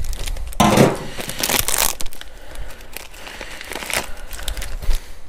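Hands handling plastic fuel pump and tank parts: a run of crinkling, rustling and light clicks, busiest in the first two seconds, with scattered clicks after.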